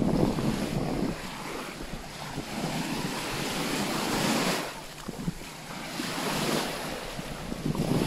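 Small Baltic Sea waves washing in at the shoreline, coming in swells of hiss a few seconds apart, with wind buffeting the microphone, heaviest in the first second.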